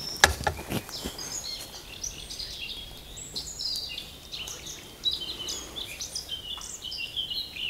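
Small songbirds chirping, with many short high calls. In the first second a few footsteps land on dry leaf litter.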